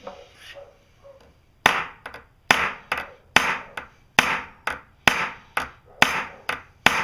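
Hammer peening the end of a nail over a washer to form a rivet head: seven heavy metal-on-metal strikes just under a second apart, each followed by a lighter tap, starting about one and a half seconds in.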